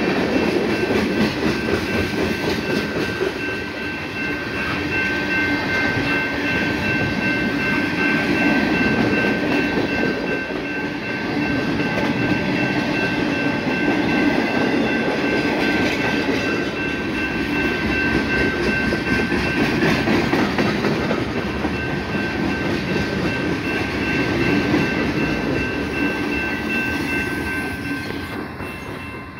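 A BNSF mixed freight train's cars (tank cars, gondolas, centerbeam lumber cars) rolling past close by: a steady rumble with wheels clattering over the rail joints. A steady high-pitched ring runs over it and cuts off near the end, as the train's sound fades away.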